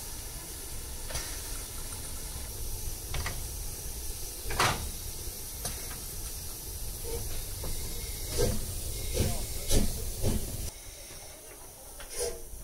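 Steam hissing steadily from the Harz narrow-gauge steam locomotive 99 222, escaping around the cylinders and wheels. Several sharp metallic knocks come through it, one about four seconds in and a cluster towards the end. The hiss then drops to a quieter level.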